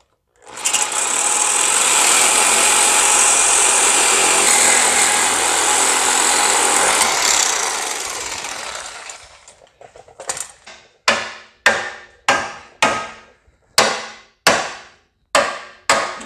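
Reciprocating saw with a metal-cutting blade cutting through the steel bumper horn bracket and its weld. It runs steadily for about nine seconds and then winds down. A few seconds later come about ten sharp hammer blows on the steel bracket, each ringing briefly, as it is knocked loose.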